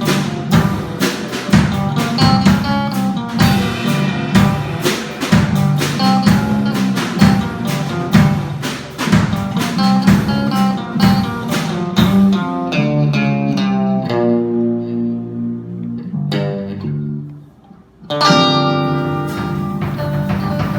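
Guitar music played in a steady rhythm, which then gives way to held chords left to ring and fade. After a brief dip, one more chord is struck about three-quarters of the way in and rings on.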